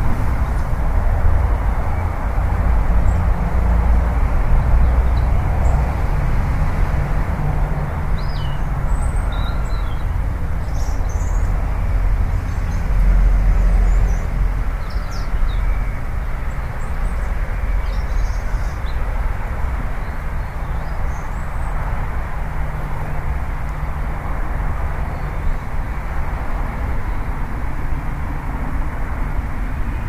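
Steady low outdoor rumble with a hiss, without a clear rhythm. A few faint high chirps come about a third of the way in.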